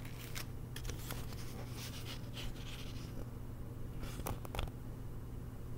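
Faint rustles and light taps of a picture book being handled and held up, over a steady low hum.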